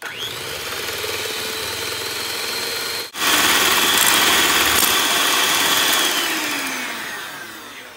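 Electric hand mixer with twin wire beaters running, beating batter in a glass bowl. The whine breaks off for a moment about three seconds in and comes back louder. Its pitch falls near the end.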